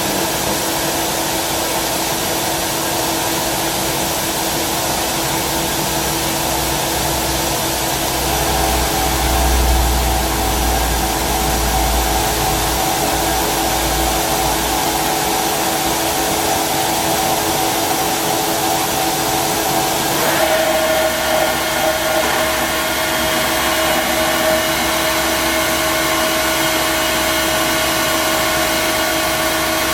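Tsugami SS32 sliding-headstock CNC automatic lathe running: a steady machine whir carrying several steady tones. A low rumble swells for a few seconds in the middle, and about two-thirds of the way through the tones shift abruptly to a new, higher set.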